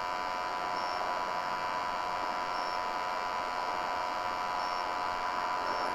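Steady electronic hum and hiss with a cluster of held tones, like mains hum or transmitter interference, with faint short high blips now and then.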